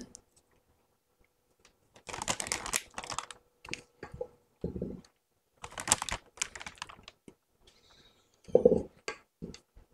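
Plastic piping bag crinkling and rustling in several short spells as macaron batter is worked into it with a spatula, after about two seconds of quiet.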